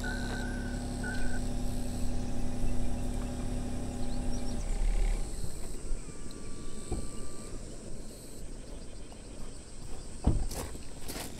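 Outdoor summer ambience with a steady high insect buzz, a low droning tone that stops about four seconds in, and a single knock about ten seconds in.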